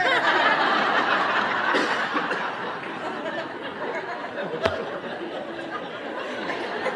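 Audience laughter, breaking out all at once and slowly dying away.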